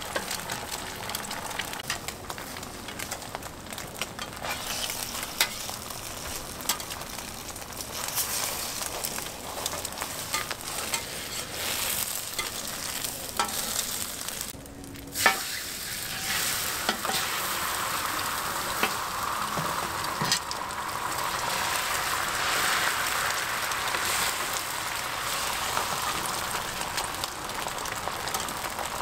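Beaten egg sizzling on a hot flat griddle, with scattered clicks and scrapes of a metal spatula turning the egg rolls. A sharp knock comes about halfway, and the sizzle is louder through the second half.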